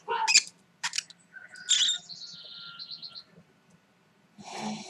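Lovebird chattering: a quick run of short, high chirps about two seconds in.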